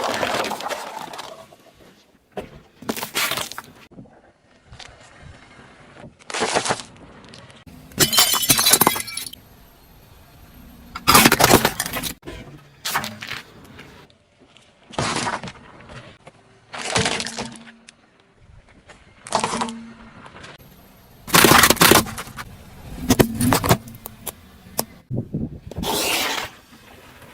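A car's tyres crushing objects: about a dozen separate sharp cracking and breaking bursts, one every two seconds or so.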